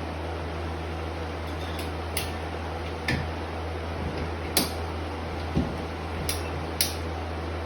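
Scattered sharp metallic clicks and clinks, about six in a few seconds, from plumbing tools and fittings being handled while water lines are run. A steady low hum sits underneath.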